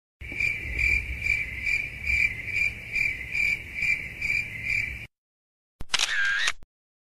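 Crickets chirping, a steady high chirp repeating about twice a second, cut in and out abruptly as an added comic 'awkward silence' sound effect. About a second after it stops comes a short comic sound effect with a wobbling pitch.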